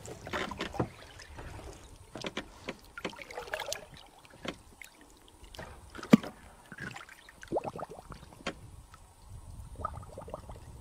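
Water sloshing and splashing as a large toman (giant snakehead) is held at the surface beside a boat and let go, in scattered small splashes with one sharp knock about six seconds in.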